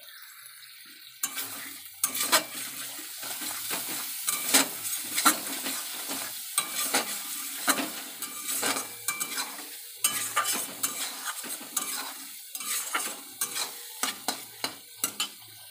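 A metal spatula stirs and scrapes a spice paste frying in oil in a kadai (wok). The paste sizzles steadily while the spatula clicks and scrapes against the pan, starting about a second in. This is the masala being fried down (koshano).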